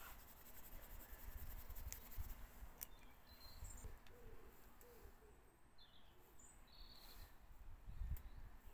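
Faint, quiet scene: a few short high bird chirps around the middle, over a faint low rumble.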